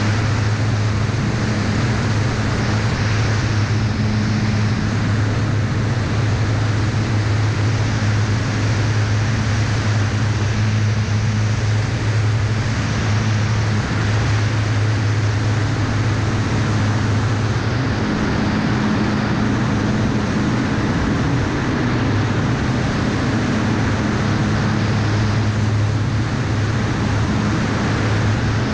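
Aeroprakt A22 light aircraft in cruising flight: the steady drone of its piston engine and propeller over loud rushing airflow on a wing-mounted camera.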